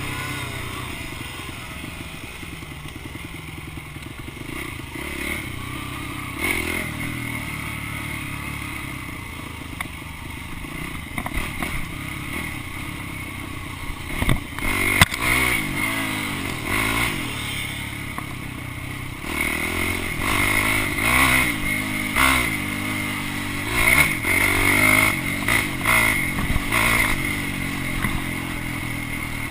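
Dirt bike engine running and revving up and down as it is ridden, with a few knocks along the way.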